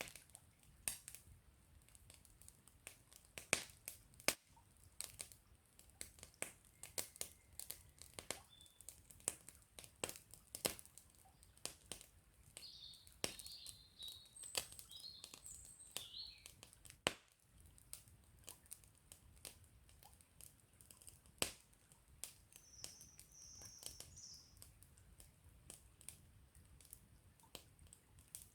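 Wood campfire crackling with frequent, irregular sharp pops. A small bird chirps in short bursts of phrases about halfway through and again later on.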